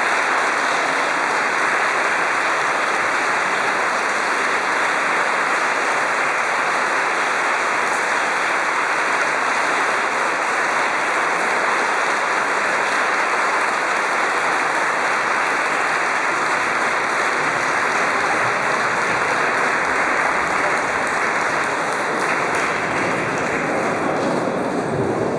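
Audience applause, a steady dense clapping that thins slightly near the end.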